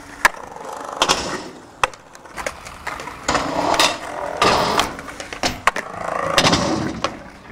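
Skateboard wheels rolling over a concrete skatepark surface, broken several times by sharp clacks of the board popping and landing.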